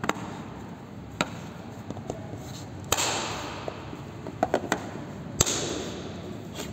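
Handling noise from a plastic power bank case being picked up, turned over and set down on a wooden table: a handful of sharp taps and knocks, the loudest a little over five seconds in, two of them trailing into a brief scraping hiss.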